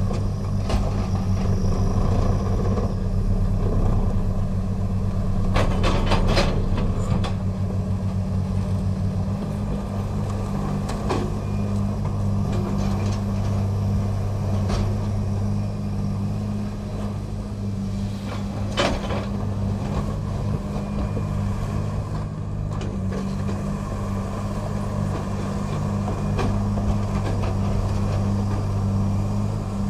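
Komatsu PC300 excavator's diesel engine running steadily under load while its Xcentric hydraulic ripper works into rock. The drone has a fast pulse for roughly the first third, and a few sharp knocks of rock cracking come about six and seven seconds in and again near nineteen seconds.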